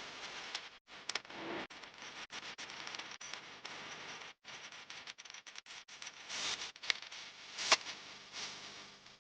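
Small handling noises: irregular light clicks, taps and rustling, with a sharper click near the end.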